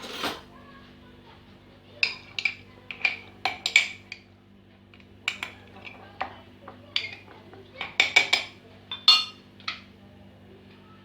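Irregular sharp clinks and taps of a utensil against a glass jar, about a dozen in small clusters, each with a short bright ring. A steady low hum runs underneath.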